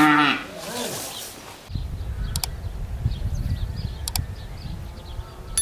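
A cow's moo tails off in the first half second. Then birds chirp faintly over a low wind rumble, with two sharp double clicks.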